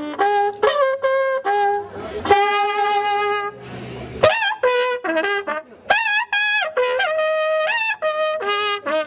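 Wakrapuku, the Andean cow-horn trumpet, blown in a fanfare of short blasts and held notes that jump between a few pitches, with a brief pause about four seconds in.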